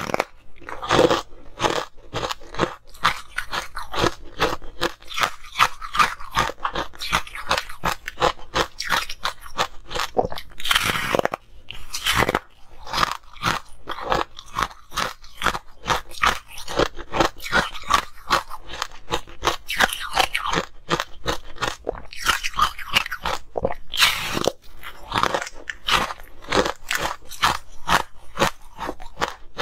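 Close-miked crunching and chewing of a frozen pink ice bar: dense, rapid crunches throughout, with a few louder bites.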